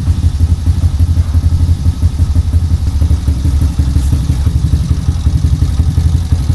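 Freshly rebuilt Kawasaki ZX130's single-cylinder four-stroke engine idling steadily with the silencer insert in its exhaust, a quick, even exhaust beat. The valves clatter audibly, which the owner puts down to loosely set valve clearances.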